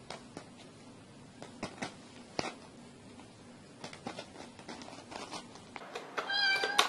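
Faint, scattered light taps and clicks of a cat's paw batting at Cheetos on a woven straw mat, then a short meow near the end.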